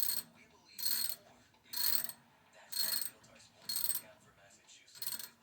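Ratchet wrench with a deep socket tightening a nut on a steam boiler's sight-glass fitting: six short bursts of ratchet clicking, about one a second, one for each back-swing of the handle.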